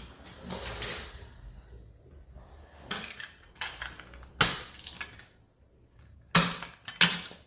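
Metal dalgona tools, a star-shaped cookie cutter and a flat press, clinking and knocking against a stainless-steel tray in a handful of separate sharp knocks. The loudest comes about four and a half seconds in, with two more near the end.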